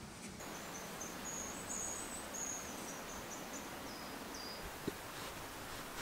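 A string of short, very high, thin chirps for about four seconds over a steady outdoor hiss, typical of a grassland insect such as a bush cricket, with a faint tick about five seconds in.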